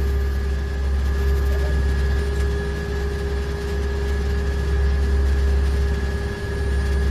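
Pilot boat's engines running steadily under way, a deep, even drone with a constant hum above it, heard from inside the wheelhouse.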